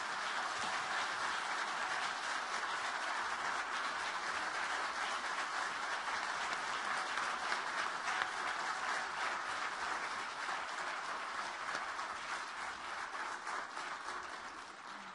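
A large audience applauding steadily, many hands clapping at once, dying away near the end.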